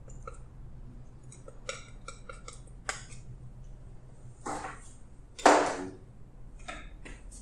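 Metal palette knife tapping and scraping on a wooden paint palette while mixing acrylic paint, a run of light clicks and ticks. A louder scrape or clatter comes about five and a half seconds in.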